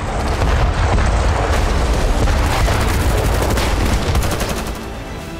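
Battle sounds: rapid gunfire over a heavy low rumble of explosions, easing off near the end.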